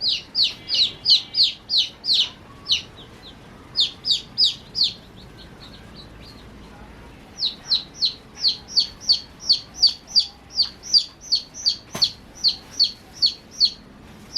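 Baby chicks peeping: a steady run of short, high, falling chirps, about three a second, broken by a pause of about two seconds midway. A single sharp click sounds near the end.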